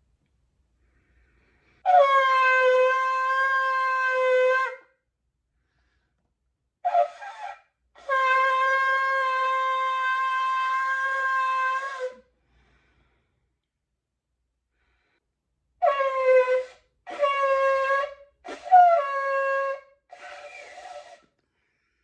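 Shofar blown in a series of separate blasts: a long note of about three seconds, a brief one, a long note of about four seconds, then four short blasts, several opening with an upward scoop in pitch, the last one quieter.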